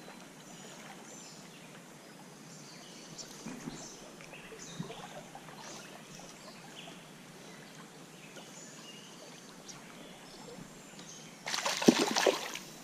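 Steady wash of a shallow stream riffle. About eleven and a half seconds in, a loud splash, about a second long, as a hooked wild brown trout thrashes at the surface.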